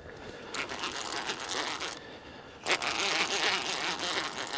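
Fishing reel working under the load of a large hooked blue catfish: fine, rapid ratcheting in two stretches, the second beginning with a sharp click.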